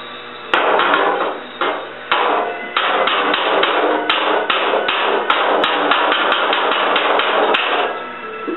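Oxy-acetylene gas welding of a steel patch into the fender seam: a loud rushing noise broken by a run of sharp cracks, about two or three a second, which starts about half a second in and cuts off near the end.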